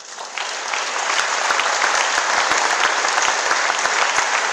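Audience applauding, building up over about the first second and then holding steady.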